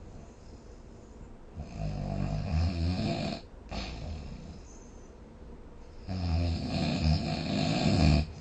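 A person snoring: two long snores, each about two seconds, about four and a half seconds apart, with a quieter stretch between.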